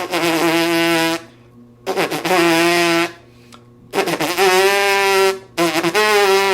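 Trumpet playing four held notes of about a second each, each started with a sharp, clean attack as a demonstration of note attacks. The first two are on one pitch and the last two are a step or so higher.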